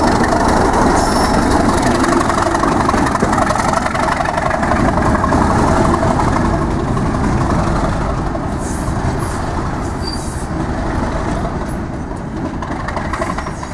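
Class 37 diesel locomotive running as it hauls a test train, its engine loud and steady, easing off over the second half. A few short high squeals come about eight to ten seconds in.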